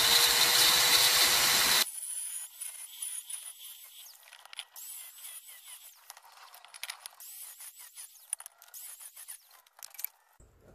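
Hand-held angle grinder cutting into the side of a glazed earthenware onggi jar, running with a loud grinding hiss over a steady motor whine, then stopping abruptly about two seconds in. Afterwards only faint clicks and light scraping remain.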